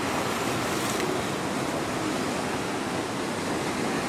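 Ocean surf breaking and washing in near the shore, a steady rush of water with no pauses.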